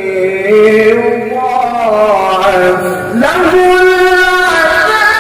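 A male qari recites the Quran in tilawah style, drawing the words out in long melodic held notes whose pitch slides slowly. About three seconds in, the voice breaks off and rises quickly into a new held note.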